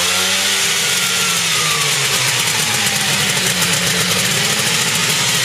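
Engine of a homemade helicopter running loud and steady. Its pitch climbs over the first second, then eases down a little and holds.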